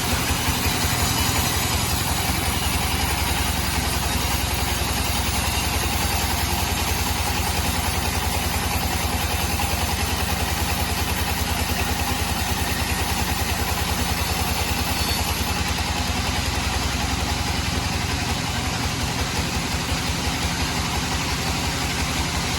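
Sawmill engine running steadily at an even speed, with a rapid low beat. A faint high whine stops about two-thirds of the way through.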